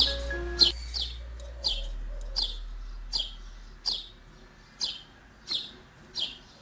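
A small bird chirping over and over, one short downward chirp about every two-thirds of a second, growing gradually fainter. Background music fades out in the first two seconds.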